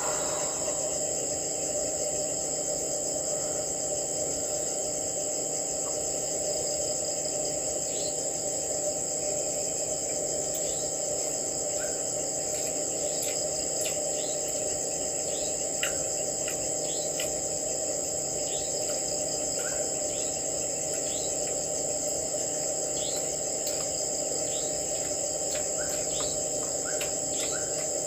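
Steady chorus of crickets and other insects, a continuous high-pitched shrill, with short chirps scattered through it and coming more often near the end.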